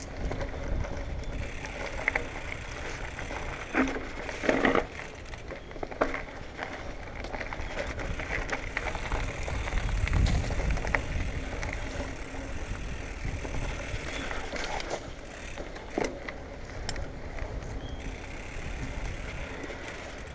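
Marin Bobcat Trail 5 hardtail mountain bike ridden over a dirt singletrack: a steady rolling rumble of tyres on dirt, with the bike rattling and a few sharp knocks, the loudest about four seconds in and near sixteen seconds.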